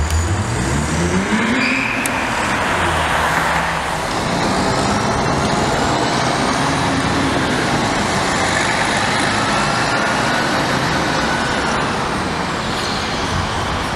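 Road traffic: a vehicle engine rising in pitch as it accelerates in the first two seconds, then steady traffic noise with a faint high whine that rises and later falls.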